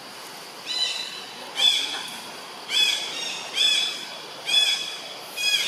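Short, high-pitched animal call repeated six times, about once a second, each note rising then falling.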